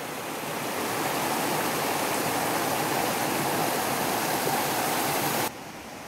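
Water rushing steadily over the stones of a small rocky stream. It cuts off suddenly near the end.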